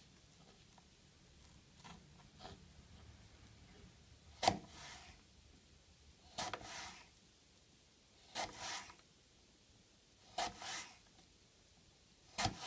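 Kitchen knife slicing through a raw apple half on a plastic cutting board: crisp cuts about every two seconds, five of them clear, each a short crunch with a sharp tap.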